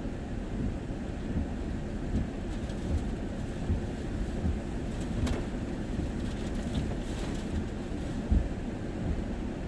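Strong, gusty hurricane wind buffeting the microphone as a low, uneven rumble, with a sharper knock near the end.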